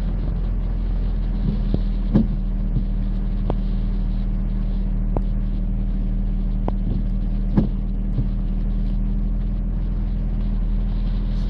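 Steady low hum of a car with its engine running, heard from inside the cabin, under a constant rush of heavy rain and floodwater, with about ten scattered sharp taps of large raindrops hitting the car.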